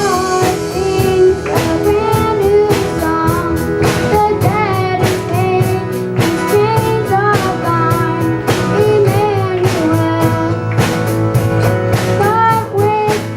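A kids' band playing a song with guitar and drum kit, with singing over a steady beat.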